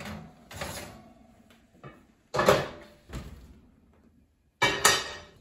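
Oven door and a preheated cast-iron Dutch oven being handled: a few sharp metal clanks, each ringing and dying away briefly, the loudest about two seconds in and again near the end.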